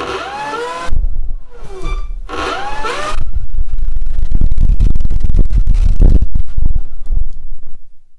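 Electric motor and propeller of a large RC plane run up on a workbench. In the first three seconds the motor whine glides up and down twice, then about three seconds in the propeller blast buffets the microphone with a loud low rumble until the motor winds down near the end.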